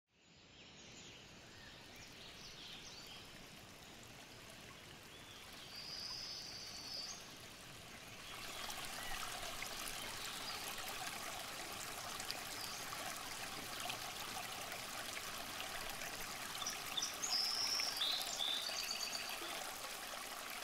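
Fast stream water rushing over rocks in a steady wash of noise that grows louder about eight seconds in, with a few short high bird chirps about six seconds in and again near the end.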